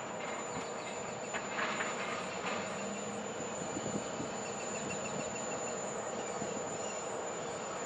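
Diesel freight train approaching while still far off: a steady, even noise of its locomotives and wheels on the rails.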